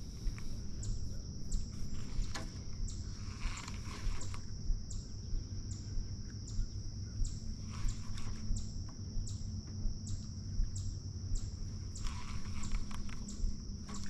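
Insects buzzing steadily in a high pitch, with a short chirp repeating a little less than twice a second, over a low, even outdoor rumble of wind and water.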